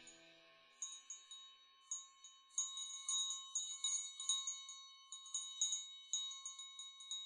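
Small metal chimes tinkling faintly: many light, irregular strikes that ring on at the same few high pitches, starting about a second in.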